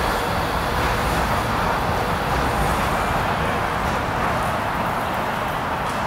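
Steady city background noise: a continuous, even rush with no distinct events.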